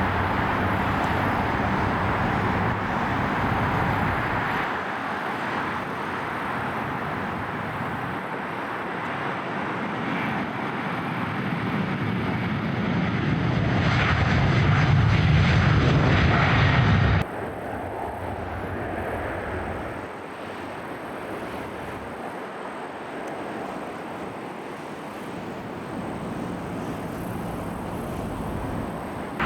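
Boeing 737-800 jet engines, CFM56 turbofans, on a departing airliner. The noise swells to its loudest a little past halfway, then cuts off abruptly and leaves a quieter steady rumble.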